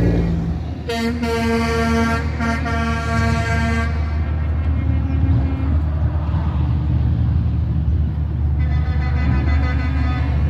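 Semi-truck air horn blowing from a passing truck convoy: one pitched horn sounded in a few blasts with short breaks from about one to four seconds in, then another horn sounding near the end, over a steady low diesel engine and road rumble.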